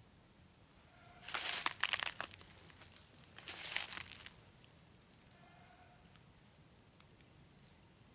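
Rustling and crackling of leaves and brush in two bursts, each about a second long and about two seconds apart.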